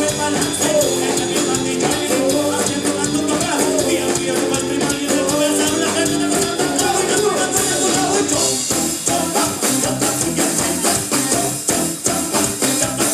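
Live band playing loud ska-fusion: drum kit, electric bass and guitar, with held notes over the beat that give way to a busier, drum-driven passage about nine seconds in.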